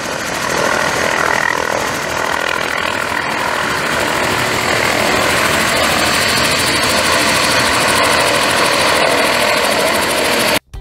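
MD 500-series light turbine helicopter hovering low over snow and setting down on its skids, its rotors and turbine running with a steady, fast rotor beat. The sound cuts off suddenly near the end.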